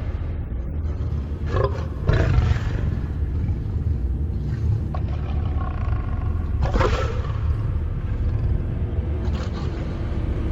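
Lions roaring: a few loud roars several seconds apart over a steady low rumble.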